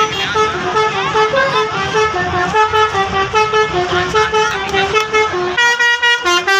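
Bus telolet horn, a multi-tone musical air horn, playing a quick melody of short notes that step up and down, over a low rumble. About five and a half seconds in it switches to a different, brighter tune.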